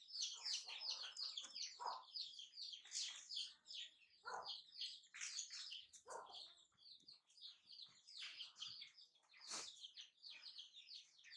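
Small birds chirping rapidly and continuously, many high short calls overlapping, with a few short lower calls mixed in.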